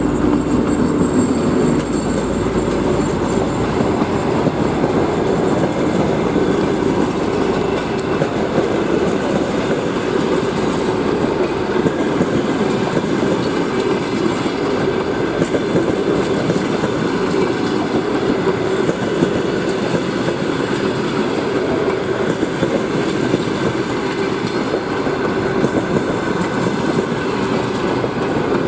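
Passenger coaches rolling past at close range, a steady rumble of wheels on the rails. In the first two seconds the humming engine of the 2M62 diesel locomotive's rear section is heard as it passes, then fades out.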